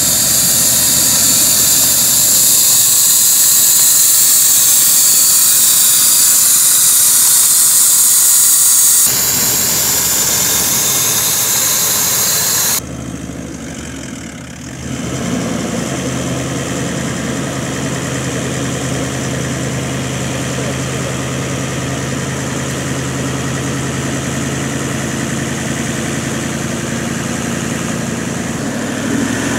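A vehicle engine running at a steady speed. For the first half a loud hiss covers it and then cuts off suddenly about thirteen seconds in.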